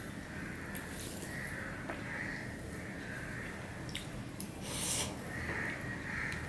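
Close-up eating sounds of a man eating rice with snake gourd fry by hand from a steel plate. Soft squishing comes first as his fingers mix the food. About four seconds in he takes a mouthful, with a couple of small clicks and a louder wet burst, followed by chewing.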